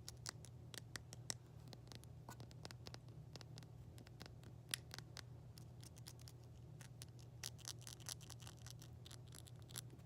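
Light, irregular tapping on objects, sharp quick taps at an uneven pace, with a denser run of scratchy clicks near the end. A low steady hum sits underneath.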